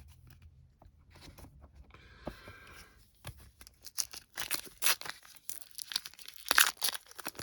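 A foil trading-card pack being torn open and its wrapper crinkled, as a series of crackles that grow denser and louder after about four seconds.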